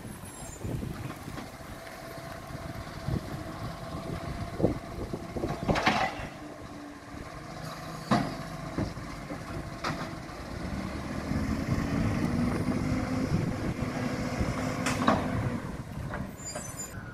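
Side-loading garbage truck working along the street: its engine running with a steady hum, broken by a handful of sharp knocks and clanks.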